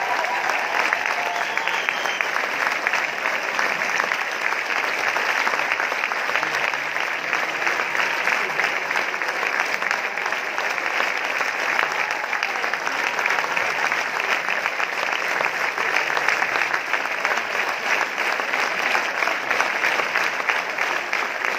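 Large theatre audience applauding: a dense, steady clapping of many hands that keeps on without a break.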